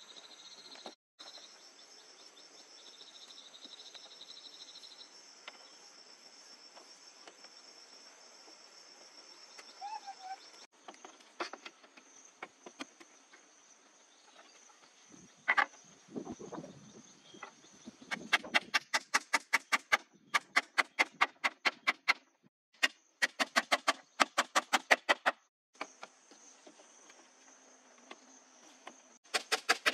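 Steady chirring of insects, likely crickets, with runs of rapid, evenly spaced knocks of a hand tool on wood and bamboo in the second half, about six or seven strikes a second.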